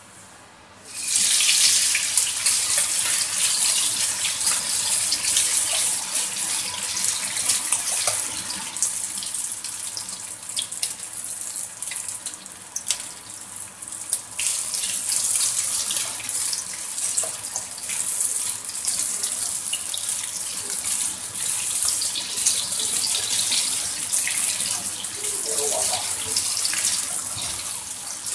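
Strips of canned luncheon meat frying in hot oil in a wok, sizzling with many small crackles. The sizzle starts suddenly about a second in, as the meat goes into the oil, and then keeps going loudly.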